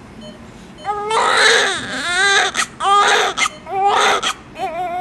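Newborn baby crying: after a quiet first second, a run of about four short high-pitched wails, then a longer drawn-out wail near the end.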